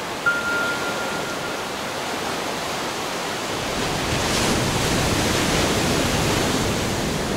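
Sea waves washing, a steady rushing that swells louder about halfway through. A single high note sounds briefly near the start.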